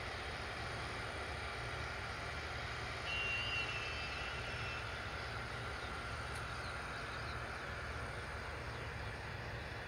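Distant New Holland CX740 combine harvesters running steadily at work, a low engine hum with a wash of machine noise. A bird chirps and whistles briefly about three seconds in, with a few more chirps a few seconds later.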